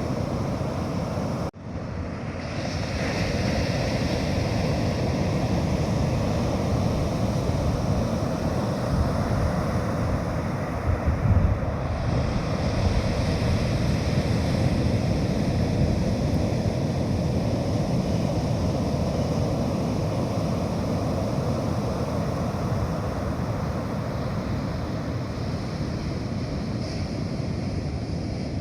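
Sea surf washing onto a beach in a steady rush, with wind buffeting the microphone and a brief louder gust about eleven seconds in. The sound drops out for a moment about a second and a half in.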